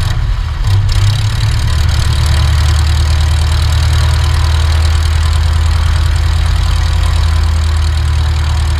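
Van's RV-7 light aircraft's piston engine and propeller running with a steady low drone, over a broad rush of air, as the aircraft rolls along a grass runway on landing.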